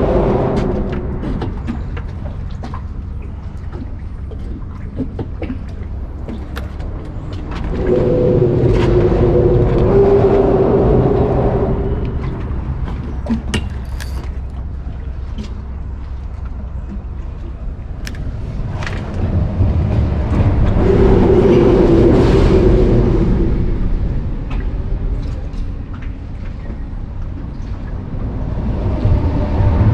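Low vehicle rumble that swells and fades three times, each pass carrying a steady hum, over a constant low background rumble, with a few light clicks and knocks in between.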